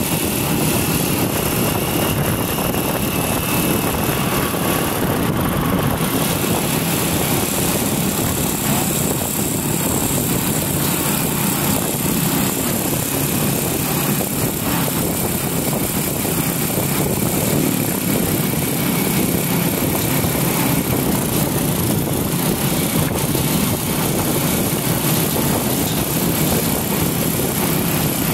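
Motorcycle running steadily at cruising speed, with wind rushing over the microphone as it rides.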